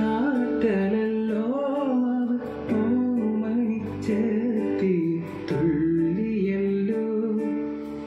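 Music: a song playing through loudspeakers driven by a homemade 250 W power amplifier that is being test-run.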